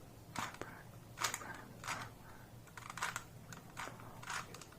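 2x2 Rubik's Cube being scrambled by hand: faint, irregular plastic clicks and clacks of its layers being turned, about one or two a second.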